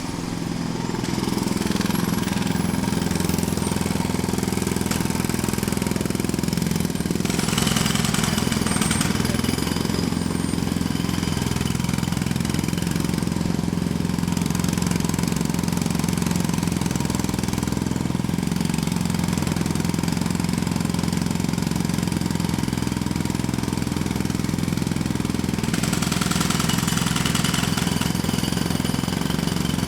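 A jackhammer running close up: a continuous, rapid hammering with a heavy low drone. It grows brighter and harsher about a quarter of the way in and again near the end.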